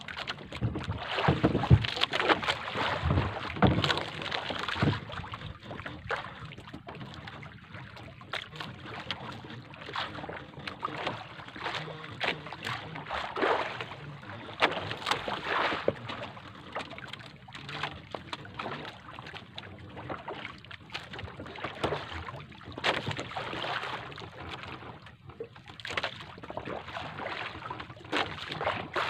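Water splashing and sloshing against the hull of a wooden outrigger boat on open sea, in irregular gusts that are loudest in the first few seconds. Wind buffets the microphone over a faint steady low hum.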